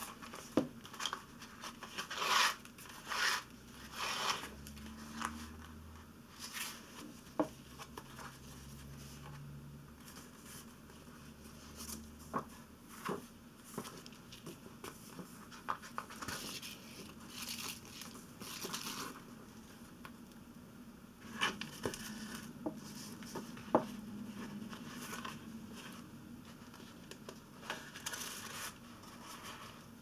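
Paper rustling and handling as a hand-sewn book's folded paper signatures and paper wrapper cover are shifted and turned, with scattered light taps and clicks.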